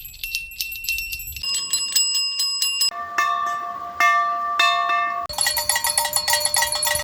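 A run of different small bells, each rung repeatedly for a second or two before cutting abruptly to the next, each one a little lower in pitch than the one before.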